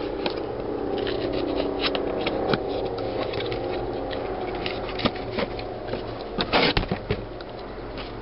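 Handling noise of auto parts being picked out and moved: scrapes, rustles and light clicks, with a louder clatter about six and a half seconds in. A steady low hum runs underneath.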